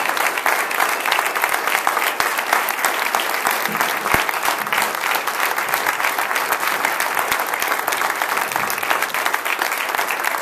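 A roomful of people applauding, many hands clapping steadily together.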